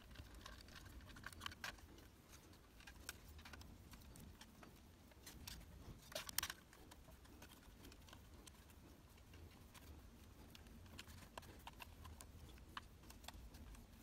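Quiet handling noise: faint scattered clicks and scrapes of fingers working copper wires into the terminals of a chrome wall socket, with a slightly louder cluster of clicks about six seconds in.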